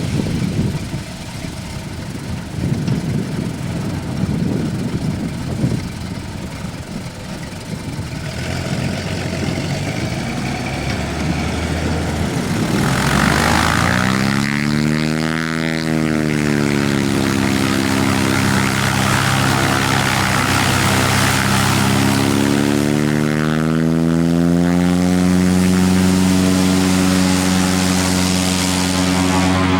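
Cessna Agwagon crop-dusting plane's piston engine and propeller. It starts as a rushing rumble, then about halfway through the engine's droning note comes in clearly. The pitch bends up and back down as the plane passes close, then settles into a steady drone that rises a little near the end.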